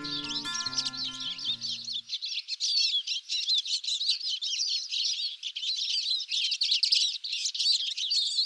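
Dense chorus of many small birds twittering and chirping without pause. An acoustic guitar tune dies away in the first two seconds.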